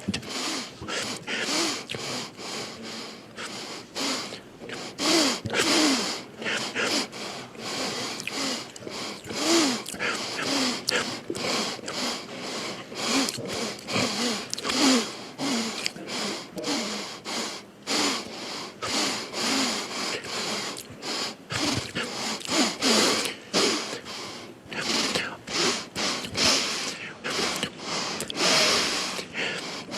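A man sniffing sharply through his nose again and again, about one or two sniffs a second, with short bits of voice between them.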